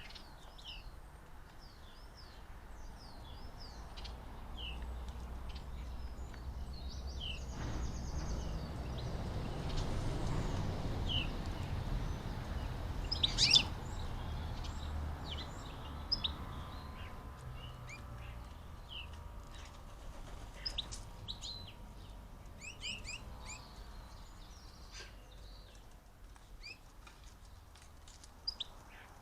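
Garden songbirds chirping and calling, many short high notes scattered throughout, with one louder call about halfway through. A low rumble swells through the middle and fades.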